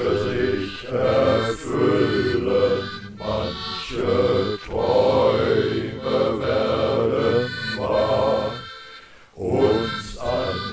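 A voice singing a slow, chant-like German Christmas song over instrumental accompaniment, in short phrases with a brief break about three-quarters of the way through.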